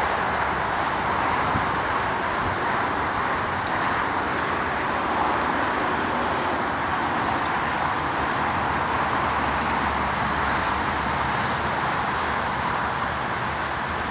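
Steady outdoor hiss with a low rumble underneath, holding level throughout, while distant Melbourne suburban electric trains approach from far off. A few faint high ticks or chirps sound over it.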